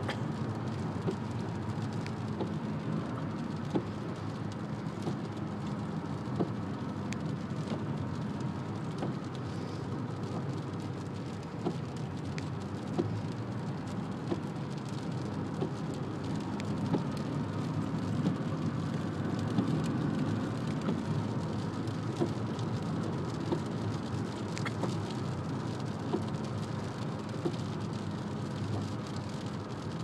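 Steady road noise heard from inside a moving car: tyres hissing on a wet road, with rain on the windshield and a few faint ticks.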